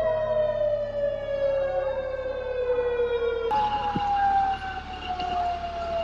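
Outdoor warning siren wailing, its pitch sliding slowly and steadily down. About halfway through there is a sudden cut, and a siren starts higher and slides down again. The sirens are sounding for a tsunami warning after a magnitude 8.2 earthquake.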